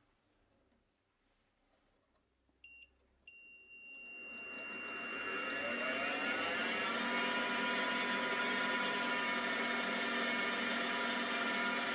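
Drilling machine spindle motor switched on with a short electronic beep and a steady high tone from its control. The motor then spins up, rising in pitch over a few seconds, and runs steadily at speed.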